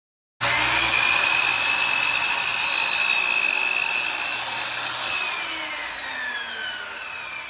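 10-inch sliding compound miter saw running at full speed with a steady high whine as it cuts through wood, starting abruptly. About five seconds in the whine falls in pitch and the sound fades as the released blade spins down.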